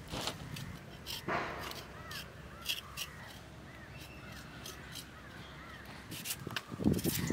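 A crow cawing about a second in, with small birds chirping and a few sharp clicks, and a louder, short, low sound near the end.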